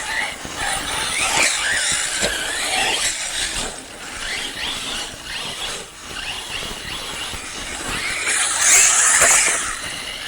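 Arrma Typhon TLR RC buggy's brushless electric motor whining, rising and falling in pitch as the throttle is worked, with a burst of high hiss about eight seconds in.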